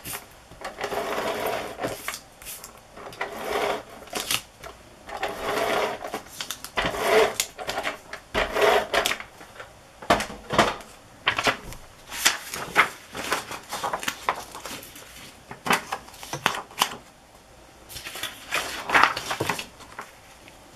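Handheld adhesive tape gun run in a series of short strokes across paper, its mechanism rattling, mixed with paper being shuffled and pressed down.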